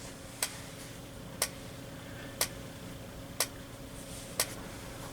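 Simplex TrueAlert strobes flashing in sync with the horn silenced: a sharp click with each flash, about once a second, over a faint steady hum.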